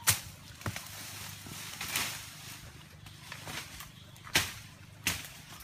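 Irregular crunches and rustles of someone pushing through dry undergrowth and leaf litter, about five sharp ones, over a faint steady low hum.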